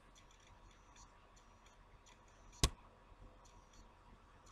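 Quiet room with faint light ticking and one sharp click about two and a half seconds in.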